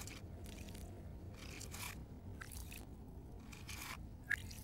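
Quiet, irregular crunching and scraping sounds, about one or two a second, with a sharper click near the end.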